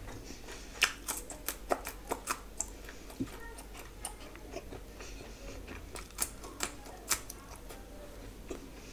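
Irregular sharp clicks and taps of fingers mixing rice and curry on a steel plate, eating by hand.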